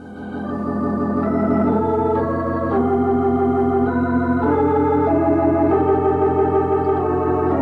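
Organ music playing sustained chords that change every second or so and swell in over the first second: a musical bridge marking a scene change in a radio drama.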